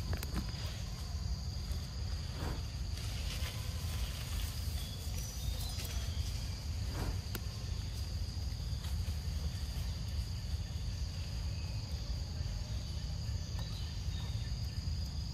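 Steady high-pitched drone of a forest insect chorus, over a low steady rumble, with a few faint clicks and rustles.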